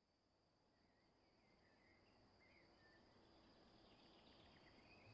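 Near silence, with very faint chirping and a faint steady high tone underneath.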